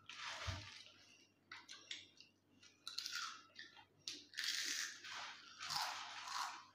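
Crisp potato chips (Lay's) being bitten and chewed, in a series of crunching bursts, the longest and loudest in the second half. A dull low bump about half a second in.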